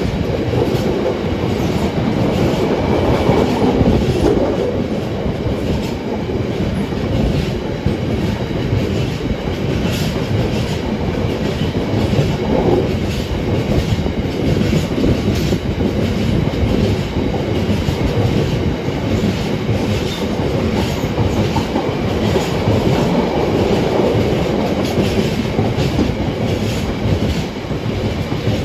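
Freight train rolling past at close range, its wagon wheels clicking over the rail joints in a loud, steady run.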